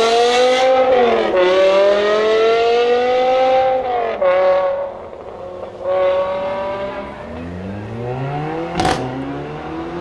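BMW S85 5.0-litre V10 revving hard under full-throttle acceleration. Its pitch climbs through the gears, with short drops at the shifts about one and four seconds in, and it fades as the car pulls away. Near the end a second car's engine rises and a single sharp bang sounds.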